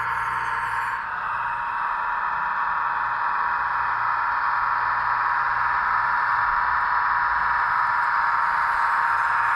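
Steady whirr of a radio-controlled model roller's small electric drive motor and gearbox as it drives over gravel, growing slightly louder as it comes closer.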